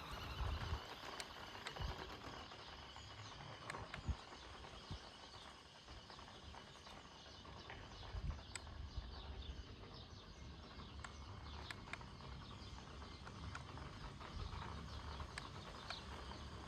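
Toy-scale electric RC car (1:14 Audi RS Q e-tron) running over dirt: irregular clicks and rattles of its tyres and chassis over loose stones, over a low wind rumble.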